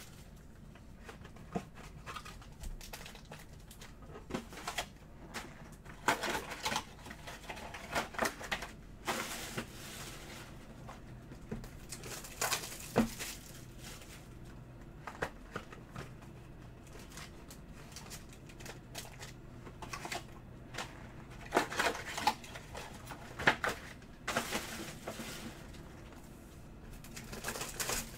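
Scattered rustling, crinkling and light clicks from cardboard trading-card boxes and foil-wrapped packs being handled on a table, coming in short clusters with quiet gaps between.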